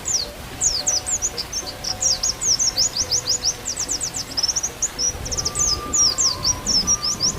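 White-eye (pleci) song: a fast, unbroken run of high, thin chirps, each a short downward sweep. Faint held flute notes sound underneath.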